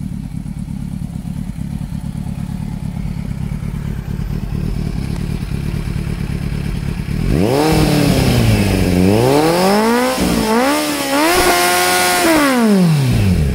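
Kawasaki Z900's 948 cc inline-four engine idling steadily through an Akrapovič exhaust. About halfway through it is revved up and down four times in quick succession, the last rev held briefly, then it drops back toward idle near the end.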